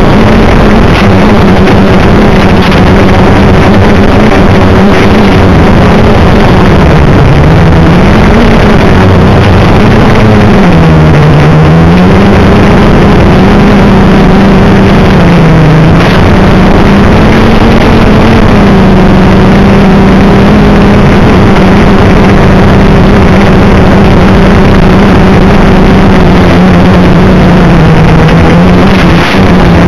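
Black Mamba H-quad quadcopter's motors in flight, a loud, distorted hum buried in heavy hiss. Its pitch wavers as the throttle changes, with dips about a quarter and a third of the way through.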